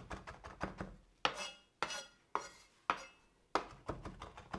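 Chef's knife finely chopping fresh rosemary on a wooden cutting board: irregular sharp knocks of the blade against the board, coming in a quicker run near the end.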